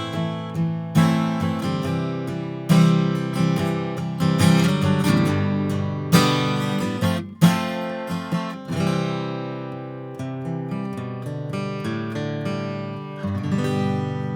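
Gibson Hummingbird Vintage acoustic dreadnought, with a thermally aged Sitka spruce top and mahogany back and sides, strummed in full chords. Several quick strums come over the first seven or eight seconds, then a chord is left ringing and fading, and another is strummed near the end.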